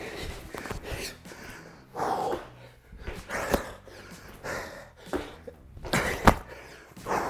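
A man breathing hard, with short forceful exhales about once a second as he lifts a sandbag in repeated cleans. A couple of sharp knocks stand out, one about halfway and a louder one near the end.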